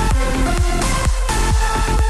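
Electronic dance music with a heavy kick drum about twice a second and synth tones.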